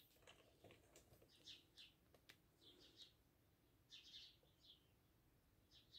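Near silence: room tone with a few faint, short high-pitched chirps scattered through it and a couple of faint ticks.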